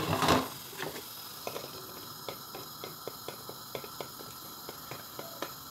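A short splash as small unripe green fruit is tipped from a bowl into a pan of hot water. Then light, irregular ticks and taps over a faint steady hiss as the fruit settles and shifts in the pan.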